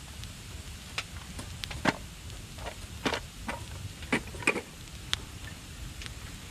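Wood fire crackling in a small brazier, with irregular sharp pops and snaps over a low steady rumble.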